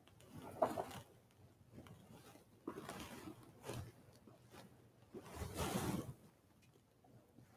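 Faint, irregular rustling and shuffling from people moving about, in four or five soft bursts with quiet gaps between.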